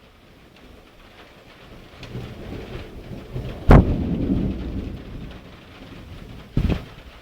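Thunder during a heavy thunderstorm: a low rumble builds about two seconds in, breaks into a sharp crack near the middle and rolls away, with another short sharp crack near the end. Rain falls steadily underneath.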